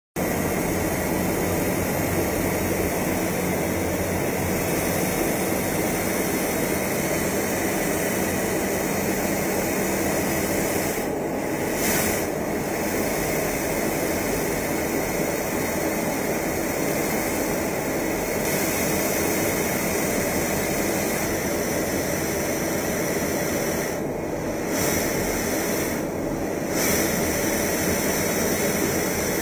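Steady jet aircraft noise in flight, heard from aboard the filming aircraft: an even, constant rushing sound. The high hiss dips briefly a few times, around the middle and near the end.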